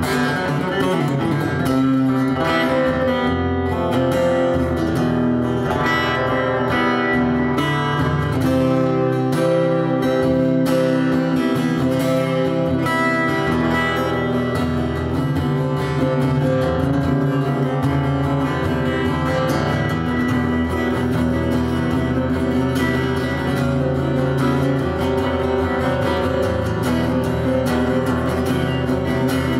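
Acoustic guitar played solo, with chords and notes ringing on.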